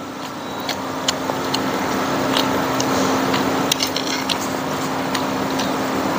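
A steady motor hum with one constant low tone, growing louder over the first two seconds and then holding. Light clicks of spoons and forks on plates are scattered through it.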